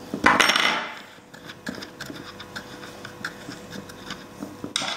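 Handling noise from a mini cordless chainsaw: its plastic body scraping on a wooden tabletop, loudest in the first second, then faint scattered clicks as the side-cover nut is turned off by hand.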